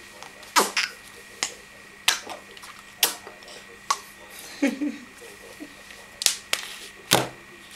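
A series of sharp clicks, about ten, irregularly spaced a half-second to a second apart, with a brief vocal sound about halfway through.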